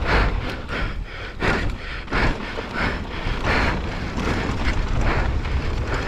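Wind buffeting the microphone of a camera on a downhill mountain bike at speed, over the rumble and rattle of the bike and its tyres on a dry dirt trail, with irregular louder surges.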